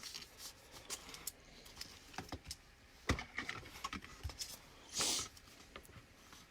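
Trading cards being handled: scattered faint clicks and taps, the sharpest about three seconds in, and a short rustle about five seconds in.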